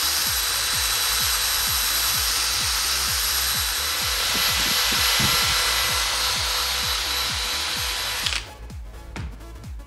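Electric power tool running steadily with a whining motor and a hiss of work on the material, cutting off sharply about eight seconds in. Background electronic music with a steady beat plays underneath.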